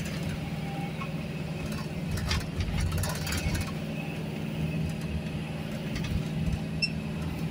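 Engine and road noise inside a moving vehicle's cabin: a steady low drone with rumble beneath it. A few light clicks come about two to three seconds in.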